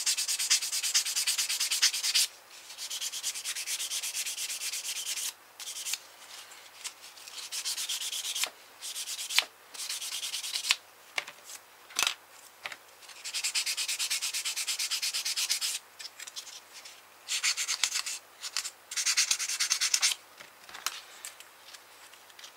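Sanding stick rubbed in quick back-and-forth strokes along the edges of a plastic model kit torpedo half. It comes in several bouts of one to three seconds with short pauses between them, smoothing the mating edges so the halves fit together. A few sharp clicks come between the bouts.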